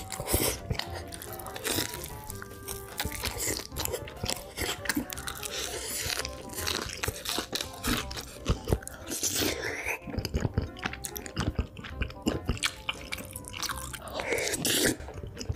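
Close-miked crunching and chewing of a fried Korean corn dog and tteokbokki rice cakes, many bites and chews in quick succession, over background music.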